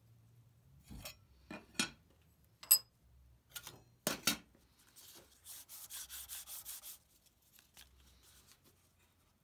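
Hands working a thin card strip against a wooden mallet head held in a vise: several light taps and knocks, the sharpest a little under three seconds in, then about a second and a half of quick rubbing strokes against the wood, around six a second, and soft handling as the strip is peeled away.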